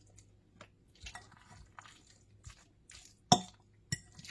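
Soft, wet chewing and mouth sounds of someone eating chicken salad on a cracker, with two sharp clicks about half a second apart near the end.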